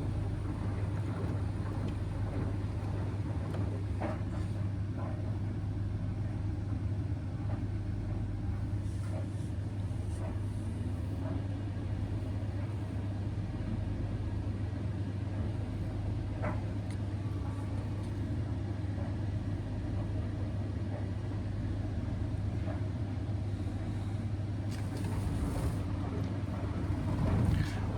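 Indesit washing machine's drain pump humming steadily as it pumps out the water, over the low rumble of a tumble dryer, with a few faint clicks.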